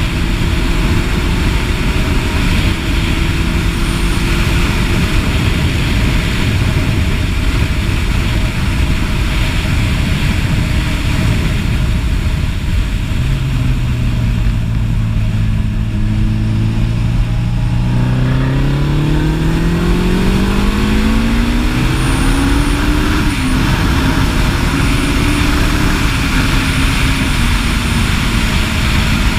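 Suzuki Hayabusa's inline-four engine running under heavy wind noise on the microphone. A little before halfway the engine note sits low and steady, then rises smoothly for several seconds as the bike accelerates, and eases off slightly near the end.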